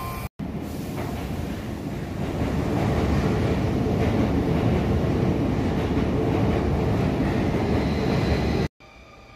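Sotetsu electric commuter train running at the station platform: a steady rumble of wheels and running gear that builds over the first few seconds, holds loud, and cuts off abruptly near the end.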